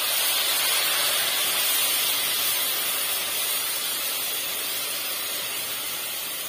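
Milk poured into a hot steel kadhai of grated carrots hissing and sizzling as it hits the hot pan. The hiss is loud and steady, then slowly fades.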